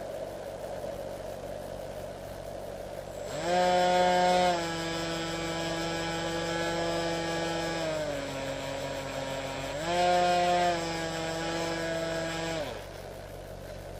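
Electric motor and pusher propeller of a Multiplex EasyStar model plane powering up about three seconds in. It runs with a steady pitched whine that steps up briefly twice and dips lower for a moment in between with the throttle, then cuts off shortly before the end. Before it starts, a steady hiss of radio static from the video link.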